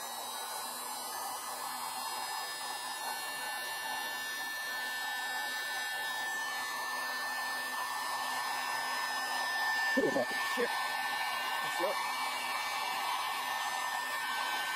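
Electric heat gun running steadily, blowing hot air onto a rubber coolant hose to soften it, a steady rush of air with a thin fan whine above it.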